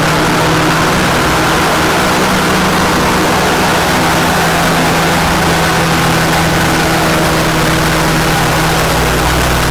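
Rotax 503 two-cylinder two-stroke engine of a Challenger 2 ultralight running steadily at a constant speed and driving the pusher propeller, on a ground test run.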